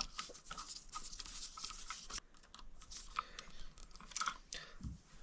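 Faint, scattered clicks and scraping of a bare copper ground wire being handled and hooked onto a light switch's green ground screw.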